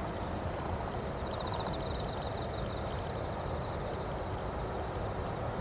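Insects trilling in rapid, high, pulsed chirps over a steady high whine, above a steady low outdoor rumble.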